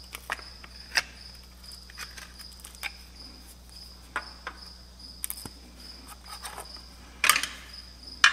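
Steel pry bar clicking and scraping against the old crankshaft rear main seal and its housing as the seal is pried out, in scattered sharp taps with a louder clatter of knocks about seven seconds in and another near the end.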